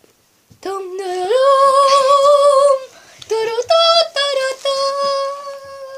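A girl singing long held notes in a high voice: the first steps up a tone and is held with a slight waver for about two seconds, then after a short pause comes a brief run of a few notes ending on another long held note.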